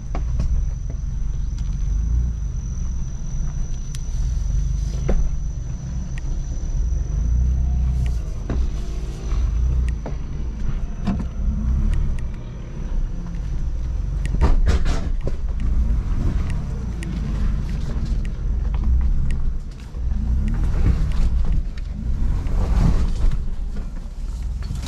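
2021 Ford Bronco crawling over a rough dirt trail, heard from inside the cab: a steady low engine and tyre rumble, with scattered knocks and rattles from the body and suspension over the bumps, a cluster about halfway through and more near the end.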